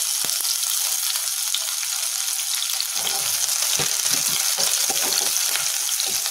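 Sliced garlic sizzling steadily in hot refined oil in a kadai. From about halfway, a spatula stirring it adds irregular low knocks and scrapes against the pan.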